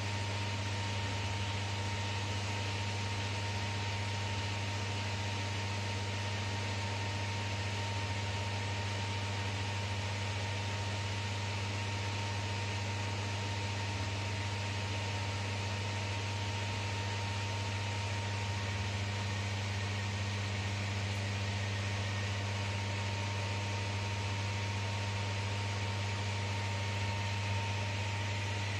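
Climate-control fan of an enclosed Ferris wheel cabin running steadily: an even whir with a constant low electrical hum and a faint thin whine.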